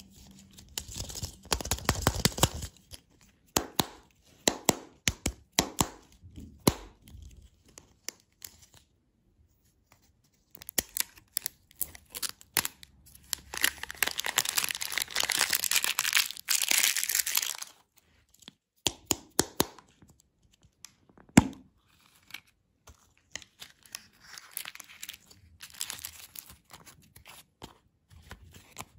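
Printed foil wrapper crinkling and tearing as it is peeled off a plastic surprise egg, in bursts with small clicks of the plastic. It ends in one long stretch of tearing, followed by one sharp snap and then softer paper rustling.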